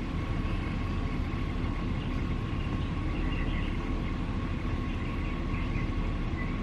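Steady road and engine rumble inside a moving car's cabin, with a faint steady whine.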